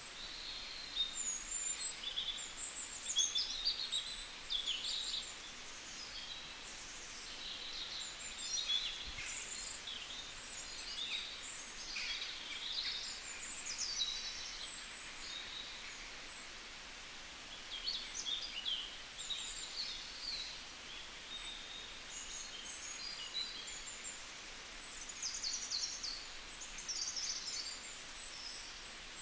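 Many small birds chirping and twittering: a busy scatter of short, high calls and trills over a faint steady hiss.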